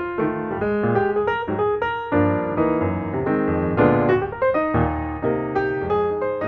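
Background music on piano: a quick run of notes, then fuller held chords.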